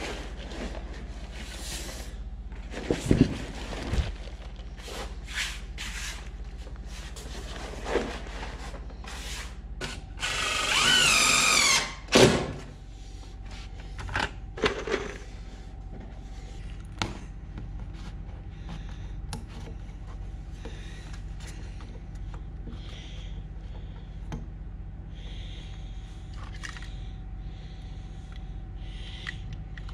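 Construction work noises: scattered knocks and clicks, and a cordless drill/driver running for about a second and a half near the middle, its pitch wavering, over a steady low hum.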